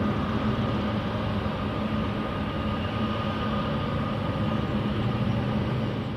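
Boeing 777F's GE90 jet engines running steadily at low power: a low rumble with a thin, steady high whine.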